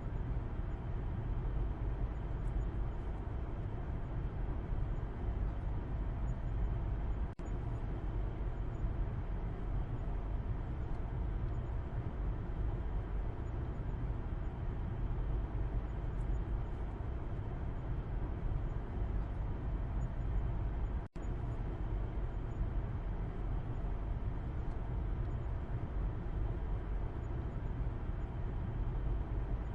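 Car interior road noise heard from the back seat: a steady low rumble of tyres and engine. Two sudden momentary dropouts break it, about 7 seconds and about 21 seconds in.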